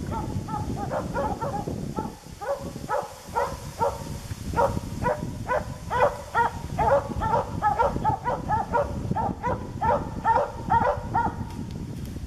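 A dog barking repeatedly at a moose, two or three barks a second, stopping about a second before the end.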